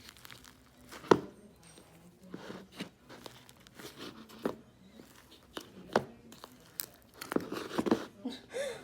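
Iceberg slime with a dried, hard crust on top being handled: crackling and crinkling as the crust breaks, with a few sharp cracks and a denser patch of crackling near the end.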